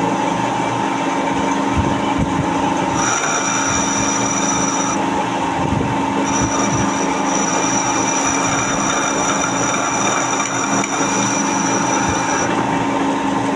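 Metal lathe running with a steady motor hum. A high, thin whine from the cut comes in about three seconds in, stops about two seconds later, then returns around six seconds in and holds until near the end.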